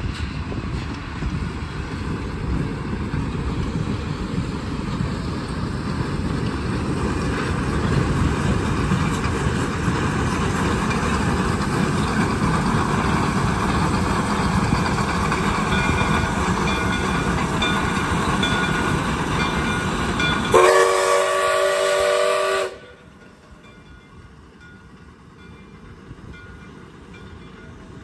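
Steam-hauled freight train rolling past close by, its wheels clattering on the rails and growing louder as the cars and the J. Neils Lumber Co. No. 5 Shay geared steam locomotive come by. About twenty seconds in the steam whistle sounds a chord for about two seconds and cuts off abruptly, leaving the train only faintly heard at a distance.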